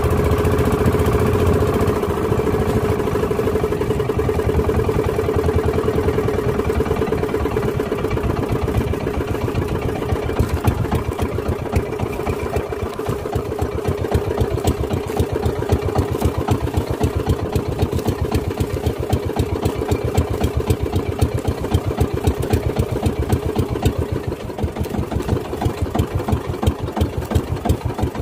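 Outrigger fishing boat's small engine running over open water. After about ten seconds its beat slows and the separate firing strokes become more distinct, as if throttled back while drawing alongside another boat.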